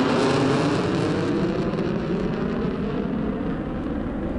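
A pair of twin-engine fighter jets flying low overhead: a loud jet roar with a sweeping, whooshing quality, loudest near the start and slowly fading as they pass.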